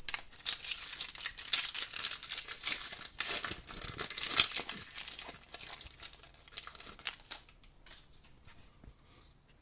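Foil wrapper of a hockey card pack crinkling and tearing as it is ripped open by hand, dying down to a lighter rustle after about five seconds.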